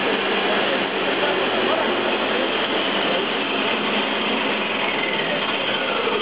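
Electric-motor drive of a mechanical oscillator running: a 2 kW motor turning a double-row roller chain and a reduction gearbox, giving a steady mechanical clatter and whine. Near the end the whine starts to fall in pitch as the drive slows.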